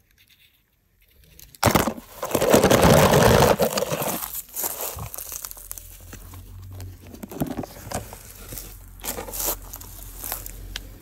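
Handling noise from a plastic container and crumbly kinetic sand: a loud rustle about two seconds in, then lighter crinkling, crunching and clicking.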